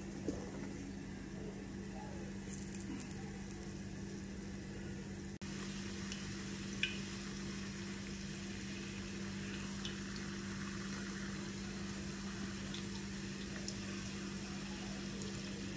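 Akara, balls of blended bean batter, deep-frying in hot oil in a pan, with a steady sizzle and a steady low hum underneath.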